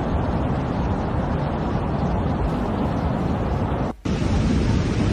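Steady low rushing noise of wind on a phone's microphone and fast-flowing floodwater. It cuts out for an instant about four seconds in, then carries on.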